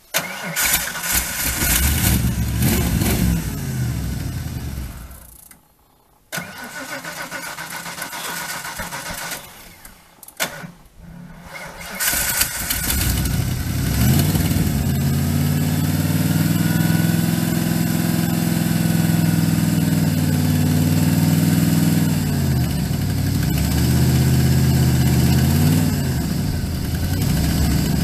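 Ford F-150's 5.8-litre 351 Windsor V8 being cold-started in deep cold on a jump pack after sitting for weeks with a dead battery: it is cranked in three bursts with two short pauses, then catches about twelve seconds in and keeps running, its revs rising and falling as it settles toward idle.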